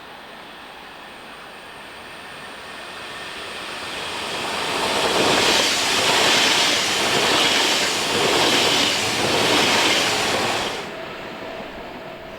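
A train passing close by on the rails. Its noise builds over several seconds, rises and falls in a regular rhythm about once a second as it goes past, then drops away abruptly near the end.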